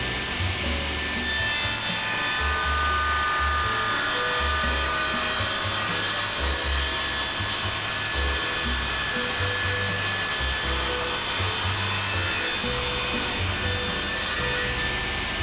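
Table saw cutting through a thick oak end-grain chopping board as it is pushed slowly across the blade; the cut starts about a second in and ends near the end. Background music with a steady bass line plays throughout.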